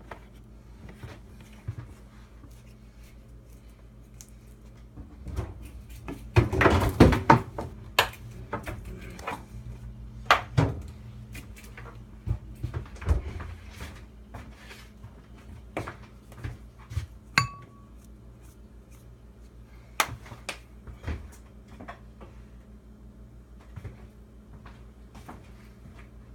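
Kitchen work: scattered knocks and clicks of dishes, a bowl and a cupboard, with a burst of clattering about six seconds in, over a steady low hum. A brief high beep sounds about two-thirds of the way through.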